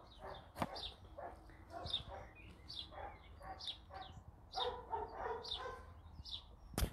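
A dog barking over and over, about two barks a second and fairly faint, with a sharp knock about half a second in and a loud thump near the end.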